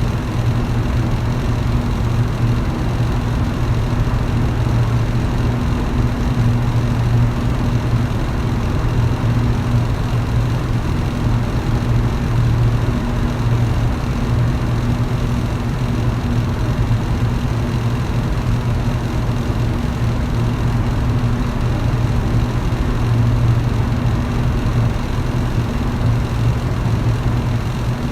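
Electric fan running at a steady speed: a constant low motor hum under an even rush of air.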